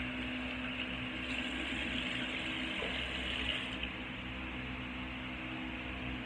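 Tap water running into a bathroom sink for a few seconds, stopping about four seconds in, over a steady background hiss and hum.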